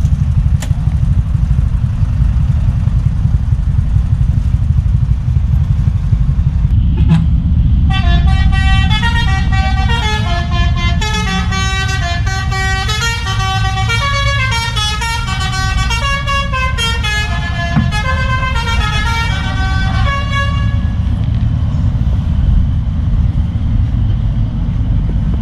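A truck's horn sounding a long run of changing notes like a tune. It starts about 8 seconds in and goes on for some thirteen seconds, over a steady low engine rumble.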